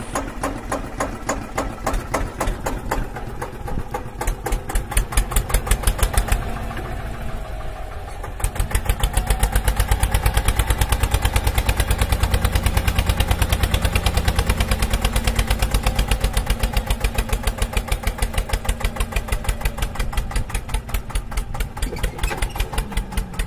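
Tractor engine running with a fast, even knocking beat, getting louder about eight seconds in.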